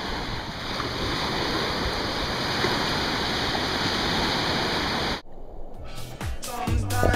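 Steady wash of ocean surf breaking on a sandy beach. It cuts off abruptly about five seconds in, and electronic dance music with a beat fades up near the end.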